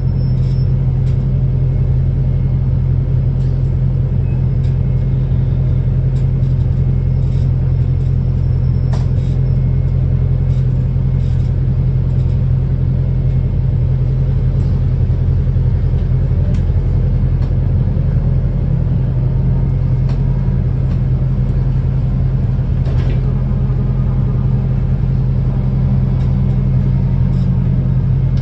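Wrightbus New Routemaster series-hybrid bus running, its Cummins ISBe 4.5-litre inline-four diesel holding a steady low drone while it drives the generator. A faint rising whine comes in about halfway through.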